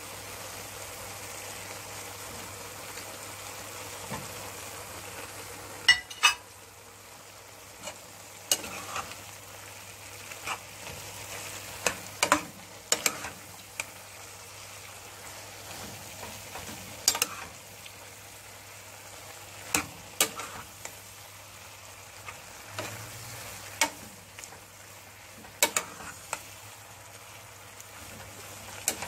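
A metal spoon stirring cabbage and sliced sausage in a frying pan. Irregular sharp clicks and scrapes of the spoon on the pan start about six seconds in, over a steady sizzle.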